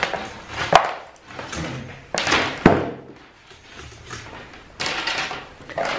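Wiring harnesses and plastic connectors being handled on a plywood workbench: wires rustling, with a few sharp knocks of the connectors and module against the wood.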